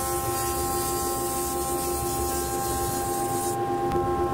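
Thickness planer running with a steady whine and hum as a batch of thin wood strips feeds through it; the high hiss drops away suddenly about three and a half seconds in.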